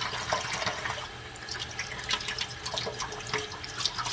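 Tap water running steadily, with many short scratchy strokes of a plastic eyeglass lens being wet-sanded on fine 3000-grit sandpaper.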